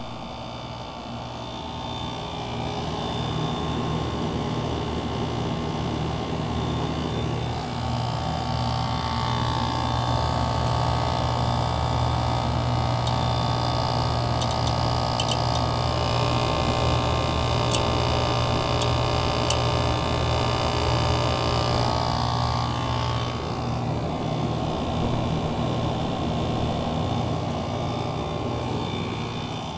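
Heat pump package unit running, a steady compressor hum with fan noise; a higher whine swells in from about a quarter of the way through and fades out again near three quarters. The unit has a faulty reversing valve, so its high and low pressures sit almost the same while it runs.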